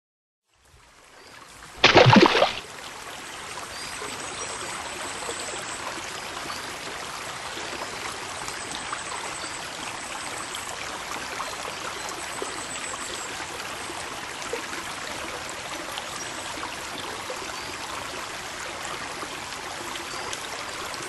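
Steady running water, like a flowing stream, fading in at the start, with one loud short burst about two seconds in.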